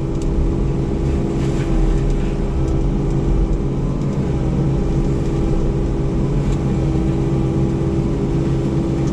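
A motor vehicle engine running at a steady speed, a continuous drone with a steady low hum.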